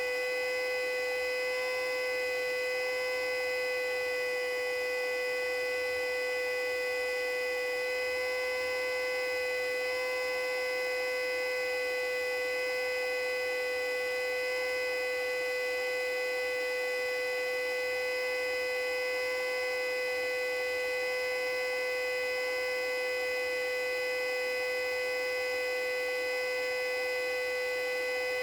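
Custom-built Federal Signal Model 2A siren sounding a steady full-alert signal: a held chord of several pitches that neither rises nor falls.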